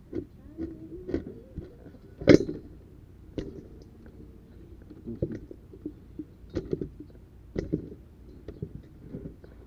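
Irregular soft knocks and clicks over a low rumble, with one sharp, louder knock about two seconds in.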